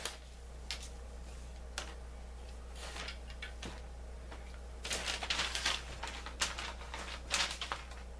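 Small plastic toy parts being handled and pressed together: a plastic hub cover worked onto a toy wheel that won't snap in, giving scattered clicks and scrapes with a busier run of clatter about five seconds in, over a steady low hum.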